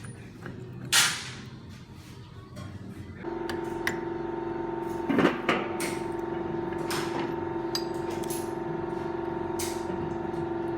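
Metal parts of a Hydramatic automatic gearbox being handled on the bench: a sharp metallic knock about a second in, then scattered clinks and knocks. From about a third of the way in a steady machine hum with a clear pitch runs underneath.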